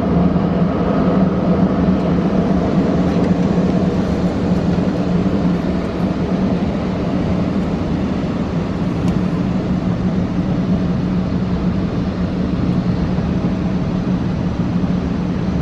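Contouring blower dryer of a Wesumat rollover car wash running as the gantry passes over the car, heard from inside the cabin: a loud, steady rush of air over a strong low hum, easing slightly about six seconds in.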